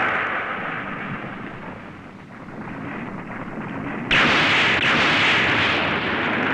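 Explosion sound effects for a kaiju being blown up. A blast dies away over the first two seconds, then a sudden, loud explosion comes about four seconds in, with a further bang just after it.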